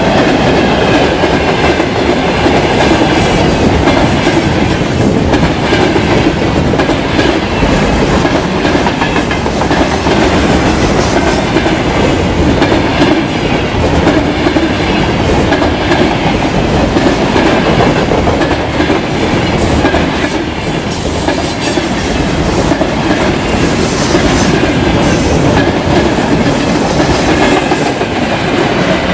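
Freight train wagons (gondolas, covered hoppers and tank cars) passing close at speed: a steady loud rumble of steel wheels on rail with a rapid clickety-clack over the rail joints.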